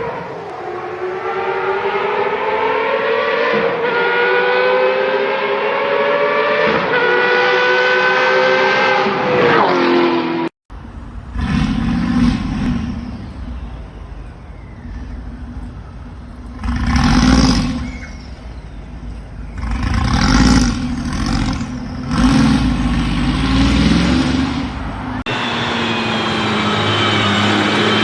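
A run of sports car engine clips. First a high-revving engine accelerates through about three upshifts, its pitch climbing and dropping briefly at each shift. After a sudden cut a deeper engine rumbles with several sharp revs, and near the end another high-pitched engine climbs in revs.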